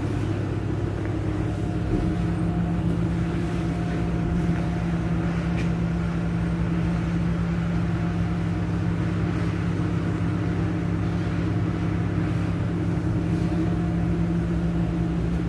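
A car engine idling: a steady, unchanging low hum.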